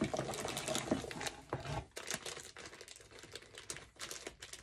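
Plastic packaging crinkling and rustling in short, irregular crackles as bagged wax melts are handled, louder for the first two seconds and fainter after.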